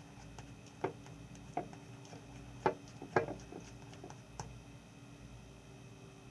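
A handful of light, irregular clicks and taps, about five in six seconds, from working the green-coloured shampoo-and-salt slime in its container.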